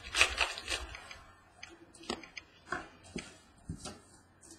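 Contenders football trading cards being handled and flipped through by hand: a brief rustle, then a series of light, irregular clicks as the cards are slid over one another.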